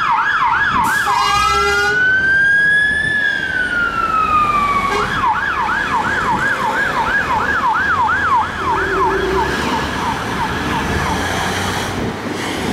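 Fire engine's electronic siren sounding a fast yelp of about three sweeps a second. About a second in it gives a short horn blast and switches to a slow wail that rises and falls once. About five seconds in it goes back to the fast yelp, which grows fainter near the end.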